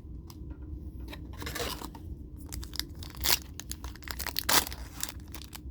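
Foil booster-pack wrapper being torn open and crinkled: scattered crackles with a few sharp rips.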